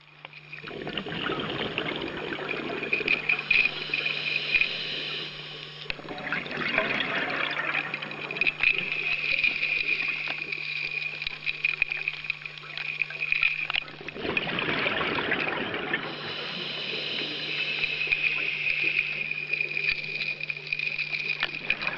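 Underwater rushing and gurgling of a water dredge running as it sucks up sediment from the seabed, with a steady low hum under it. The sound shifts abruptly a few times.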